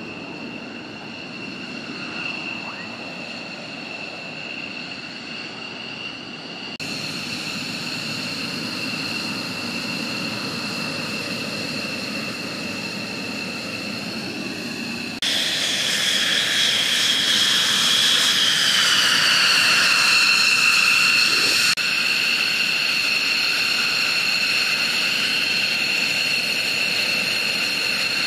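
F-15E Strike Eagle jet engines running on the flight line: a steady high whine over a rushing rumble. It jumps louder abruptly twice, and about two-thirds of the way through the whine slides a little lower in pitch.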